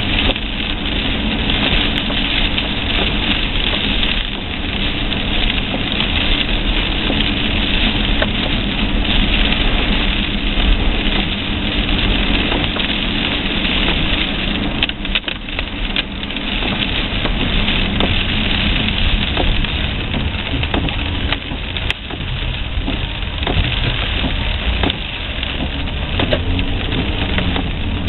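Car cabin noise while driving in a storm: a steady engine hum under a constant hiss of rain and tyres on wet road.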